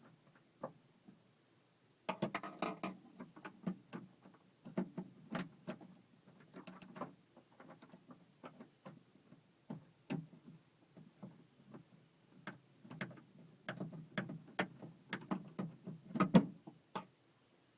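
Irregular clicks, taps and rattles of plastic door-handle parts on a 2006 Pontiac Vibe being latched in and a screw being driven in by hand, with a busier clatter about two seconds in and the loudest knock near the end.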